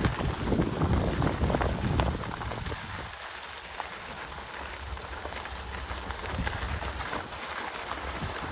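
Wind buffeting the microphone for about the first three seconds, then a quieter, steady crackling of mountain bike tyres rolling over the dirt trail.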